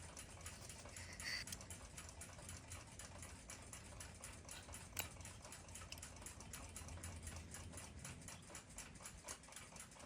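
Faint, fast and even mechanical ticking of a clock, several ticks a second, with a short metallic ping about a second in and a sharper click about halfway through.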